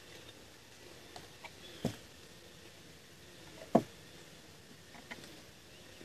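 A handful of short knocks and light rustles from dead wooden branches being handled and fitted together. One thump a little past halfway is much louder than the rest.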